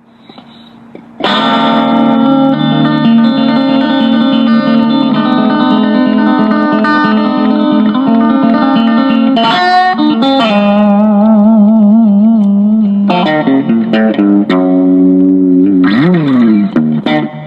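Background music led by guitar playing long held notes, starting about a second in after a brief quiet moment. The notes waver in pitch in the middle, and there is a pitch slide near the end.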